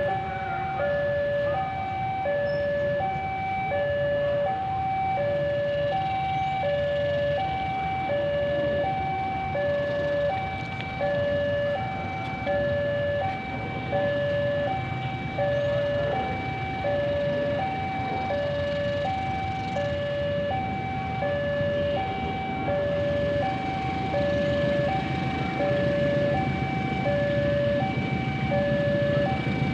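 Railway level-crossing warning alarm sounding a steady two-tone cycle, a lower and a higher tone alternating about every half second. Under it, a low rumble of engines grows louder near the end.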